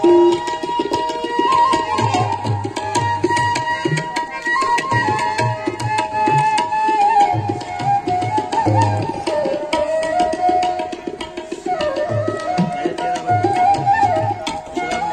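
Live Indian devotional music: tabla keeping a steady rhythm under a bansuri (bamboo flute) melody that glides and bends in pitch, amplified through microphones and a PA.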